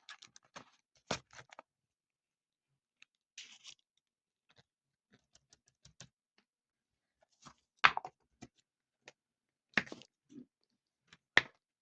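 Scattered short taps, clicks and rustles of small toys and plastic packaging being handled, with a few sharper knocks in the second half.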